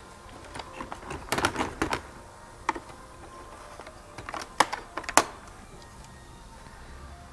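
Two clusters of sharp plastic clicks and snaps, the first about a second in and the second around four to five seconds in, as a broken plastic fin of a car's active grille shutter is worked and cut off with hand cutters.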